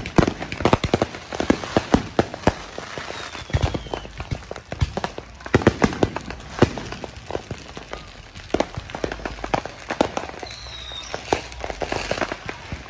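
Consumer fireworks and firecrackers going off all around: a dense, irregular run of sharp bangs and crackling pops, some much louder than others.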